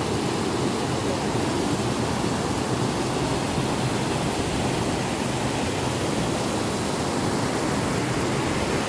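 Shallow cascade of creek water rushing and splashing down sloping rock slabs: a steady, even rush with no let-up.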